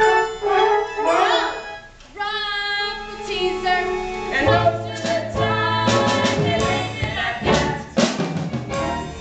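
Young voices singing a musical-theatre number over instrumental accompaniment, with a sliding vocal note about a second in. A bass line and drum hits come in about halfway through.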